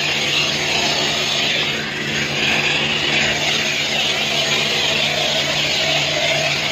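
High-pressure wash lance at a self-service car wash spraying soapy water onto a car's side and wheels: a steady hiss of spray over a constant low hum, easing slightly about two seconds in.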